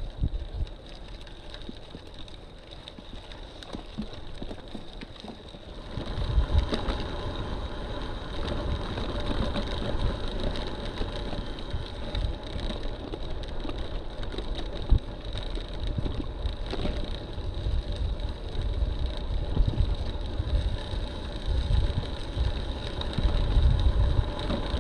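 Wind buffeting the microphone of a bike-mounted camera and tyres rolling over a dirt road as a road bike rides along. The low rumble gets much louder about six seconds in and stays that way.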